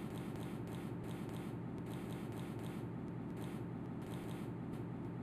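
Quiet background hum and hiss, with faint light ticks scattered throughout.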